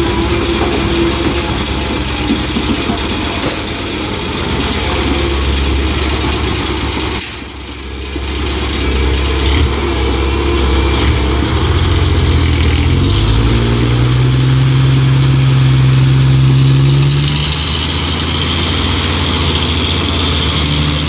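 Diesel engine of a Komatsu PC130-8 hydraulic excavator running while it works, its pitch climbing and holding about halfway through and dropping back near the end; a brief sharp click and dip about a third of the way in.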